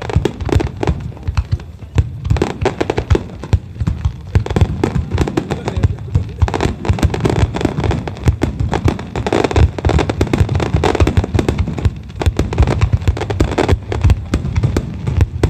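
Large aerial fireworks bursting in rapid succession: a dense, continuous barrage of booms and crackling bangs.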